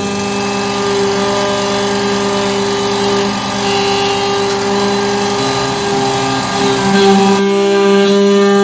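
Carvera Air desktop CNC mill cutting, with a steady spindle whine under the hiss of the cutter working the stock. About seven and a half seconds in the cutting hiss drops away and the whine carries on.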